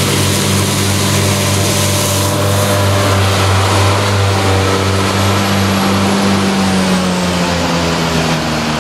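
JCB Fastrac 4220 tractor's engine running steadily under load as it drives past with a Krone EasyCut front disc mower cutting grass, over a hiss. The engine note drops slightly in pitch near the end as the tractor passes close by.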